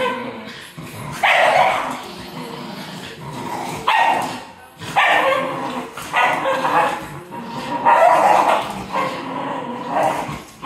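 A French bulldog and a miniature schnauzer growling and barking while tugging a slipper between them. Several loud barks come a second or two apart, with growling in between.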